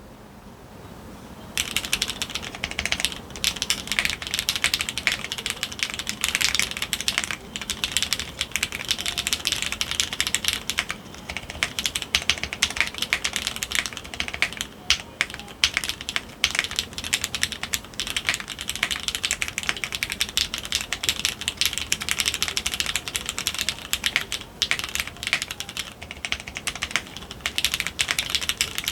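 Fast, continuous typing on a Geonworks F1-8X mechanical keyboard with fully lubed Cherry MX Nixie switches, GMK keycaps and no foam in the case: a dense stream of keystroke clacks that starts about a second and a half in.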